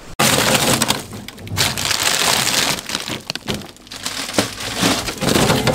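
Plastic zip-lock freezer bags crinkling and rustling, with frozen food knocking, as the freezer is rummaged through.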